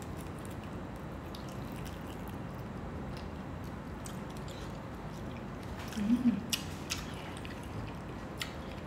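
Close mouth sounds of eating fish and rice by hand: soft chewing, wet lip smacks and clicks over a steady low hum. Around six to seven seconds in come a few louder smacks and a brief hummed "mm".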